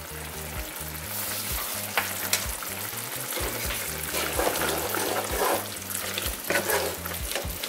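Chicken pieces sizzling and simmering in sauce in a skillet, a steady hiss. In the second half a wooden spatula stirs and scrapes through the pan, working in flour to thicken the sauce.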